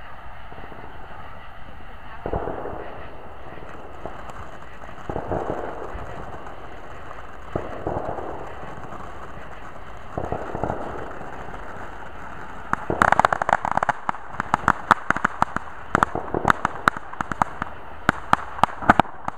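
Ground fountain firework hissing steadily as it sprays sparks, with a short louder burst every two to three seconds. About two-thirds of the way in it breaks into a fast, dense run of sharp crackles.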